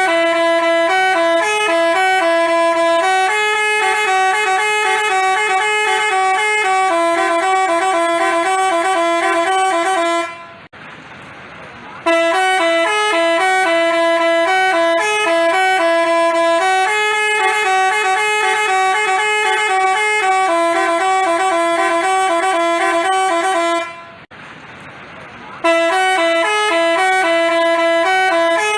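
Basuri telolet bus horn playing a melody of steady, stepped notes. It stops twice for about a second and a half, then starts the tune again.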